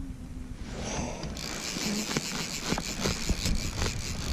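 Fly reel's click-pawl drag ratcheting in a fast run of clicks, starting about a second and a half in, as line comes on or off the reel with a silver salmon hooked.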